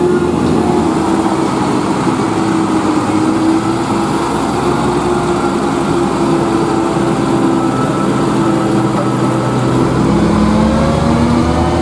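UD Quester CKE 250 truck's GH8E diesel engine running as the truck pulls away, a steady engine note. Near the end the pitch rises as the engine picks up revs.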